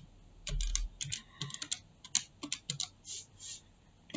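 Irregular run of light clicks and taps, like typing on a computer keyboard, with a soft thump about half a second in.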